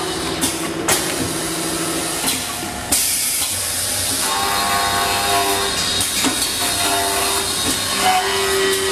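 Automatic back-knife wood lathe running, its knife cutting a spinning wooden stick: a steady machine noise with a hiss of cutting, and a pitched whine that comes and goes several times as the cut proceeds. Sharp knocks about a second in and about three seconds in.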